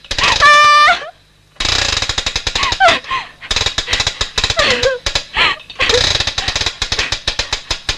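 A woman screams and cries out in distress over a rapid, continuous mechanical rattle. Both break off briefly just after a second in, then resume.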